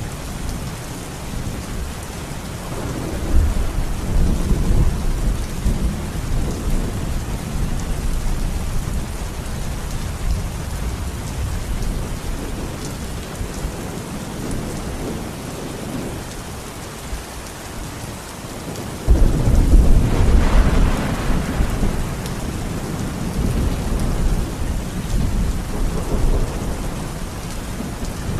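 Heavy rain falling steadily through a thunderstorm. Thunder rumbles in about three seconds in, and a sudden, louder thunderclap breaks about two-thirds of the way through and rolls on to the end.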